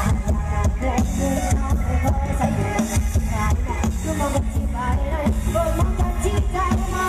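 Loud music with heavy bass blaring from a Thai rot hae parade sound-system truck, picked up on a phone's microphone.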